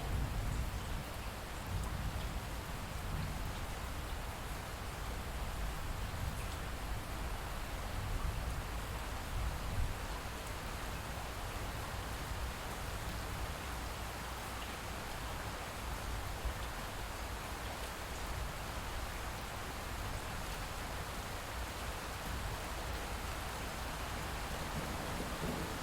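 Steady light rain falling as an even hiss, with a low rumble of distant thunder in roughly the first ten seconds that dies away.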